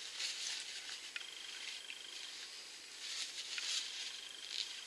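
Soft rustling of a paper tissue being rubbed over the lips to wipe off lipstick, with a few faint clicks.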